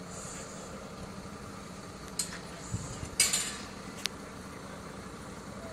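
A steady low background hum, with four short clinks and clatters, the loudest a little over three seconds in.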